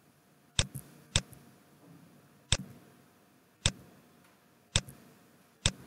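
Computer mouse button clicked six times at uneven intervals about a second apart, each a sharp click, while editor tabs are being closed.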